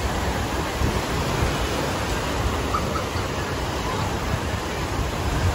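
Steady rush of surf breaking and washing up onto a beach, with a low rumble of wind.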